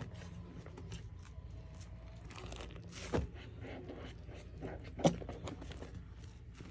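A soapy sponge being squeezed and rubbed through thick suds, with wet crackling of the foam and two sharper squelches about three and five seconds in, the second the loudest.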